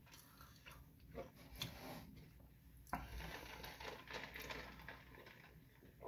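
A person quietly chewing a mouthful of burger close to the microphone, with soft mouth clicks and a sharper click about three seconds in.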